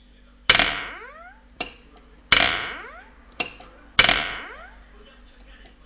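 A drinking glass clinking three times, about every 1.7 s. Each sharp strike rings on and fades with tones gliding upward in pitch, and a fainter tick comes just before the second and third.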